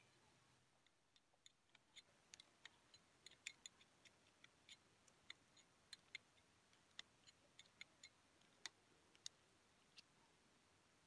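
Near silence broken by faint, sharp clicks that come irregularly, two or three a second, starting about a second in and stopping near the end.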